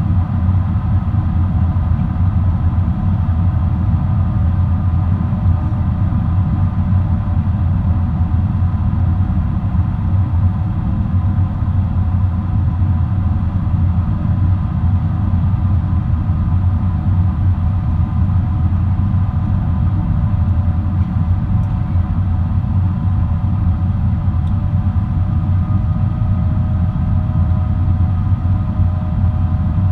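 Boeing 777-300 jet airliner in flight, heard as steady cabin noise: an even low rumble of engines and airflow with a few faint steady tones above it, unchanging throughout.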